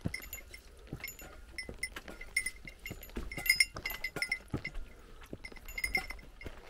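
A small metal bell jingling in short, irregular rings at a steady high pitch, over footsteps on a mountain trail.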